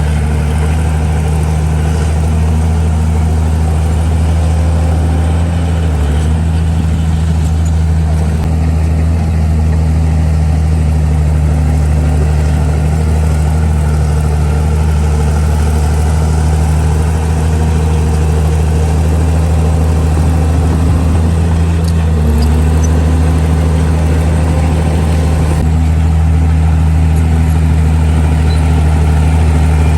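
Komatsu D41E bulldozer's diesel engine running steadily at work, its pitch sagging briefly a few times as it takes load.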